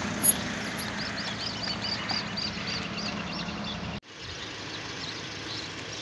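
Vehicle engine and road noise with a steady low hum as the car rolls along. Over it a bird gives a fast run of short, repeated calls, about three or four a second, for around three seconds. There is a brief loud bump just after the start, and after about four seconds only the quieter vehicle hum remains.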